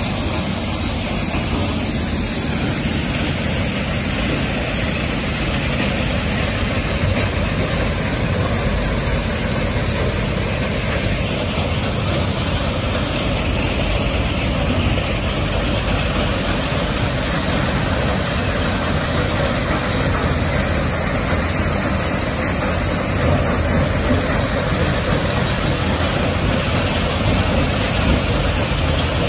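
Stone crushing and screening plant running: a steady, unbroken din of machinery and stone moving on its conveyors.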